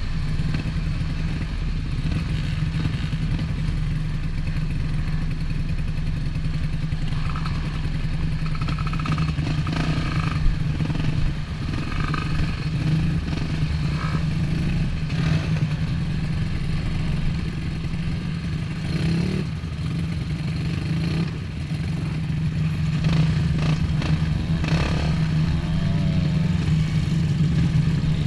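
Dirt bike engines running at idle at close range, a steady drone, with now and then a short clatter.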